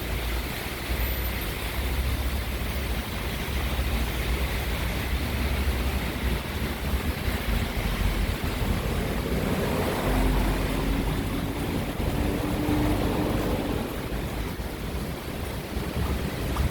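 Heavy wind buffeting the microphone in driving rain: a steady rushing noise with low rumbling. About nine seconds in, a passing vehicle's low engine hum rises slightly and fades.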